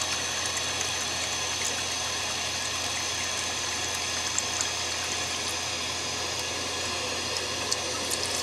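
Toilet tank refilling: water running steadily through a new plastic float-and-rod ballcock fill valve as the level nears the fill line.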